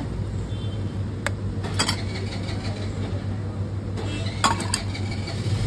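Metal utensils clinking at a food stall: sharp clinks about a second in, again near two seconds, and a quick cluster of three at about four and a half seconds, over a steady low hum.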